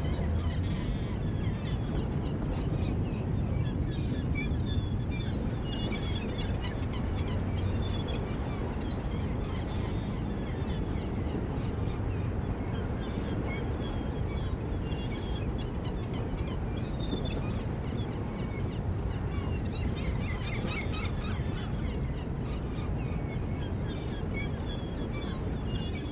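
Harbour ambience of many gulls calling, short cries scattered throughout, over a steady low rumble.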